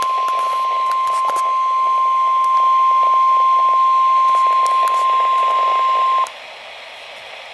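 NOAA Weather Radio warning alarm: one steady high tone over radio static, cutting off suddenly about six seconds in and leaving only the receiver's hiss. The tone signals that a warning message, here a severe thunderstorm warning, follows.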